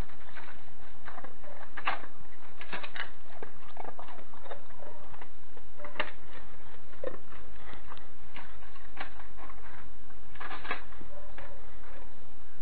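A small clear plastic box knocked and scraped about on concrete by an Alaskan Malamute's nose and paws: irregular clicks and rattles, with a quick cluster of them near the end.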